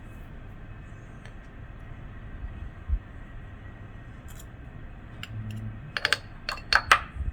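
Light clicks and clinks of a spoon and the aluminium parts of a Bialetti Moka Express as ground coffee is added to the filter funnel: a dull thump about three seconds in, a few scattered clicks, then a quick cluster of sharper clinks near the end.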